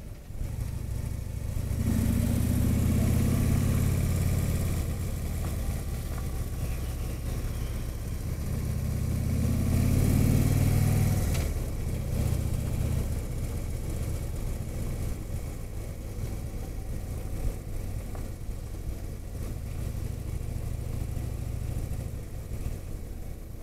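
Motorcycle engine running at road speed, growing louder twice for a few seconds as the throttle is opened, then running steadily, with wind rushing past the microphone.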